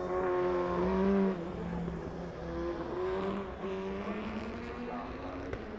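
Race car engine accelerating up through the gears, its pitch climbing and then stepping down at each upshift. It is loudest just over a second in.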